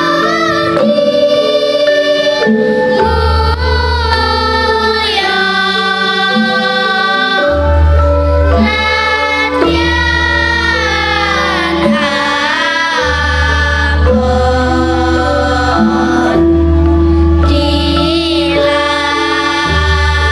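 Children's choir of schoolgirls singing a Javanese-language song together over an instrumental accompaniment, with long held bass notes changing every few seconds beneath the voices.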